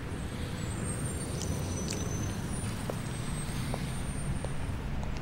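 Steady low rumble of road traffic, with faint thin high-pitched tones over it for much of the time.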